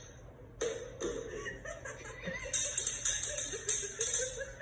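A woman chuckling softly, starting about half a second in. From about halfway, a light, rapid tinkling joins in.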